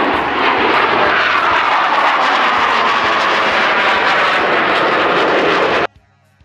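Loud jet roar from a Blue Angels F/A-18 Hornet flying past, with a whine in it that falls in pitch as the jet goes by. It cuts off suddenly near the end.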